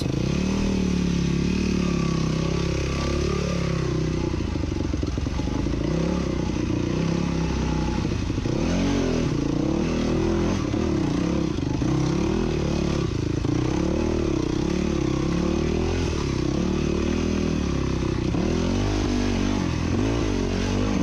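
A Yamaha enduro dirt bike's engine runs continuously as it is ridden slowly over rocky trail. Its pitch rises and falls as the throttle is worked.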